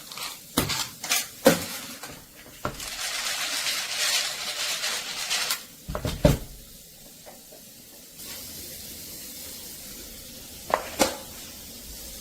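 A small dog eating from a plastic slow-feeder bowl: food and bowl clatter in a few sharp clicks and knocks, with a stretch of scraping and rustling in the middle.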